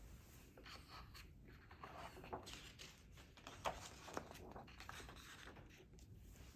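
Paper pages of a hardcover picture book being turned by hand: faint rustling with a few sharper crackles and flaps, loudest about two to four seconds in.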